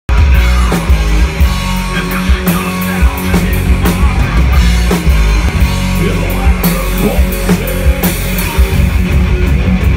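Loud live heavy rock band playing: electric guitars and bass guitar over a drum kit, with frequent sharp drum and cymbal hits.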